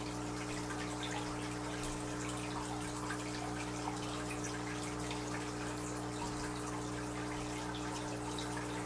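Water trickling and dripping steadily in a bluegill aquarium, with a steady low hum underneath.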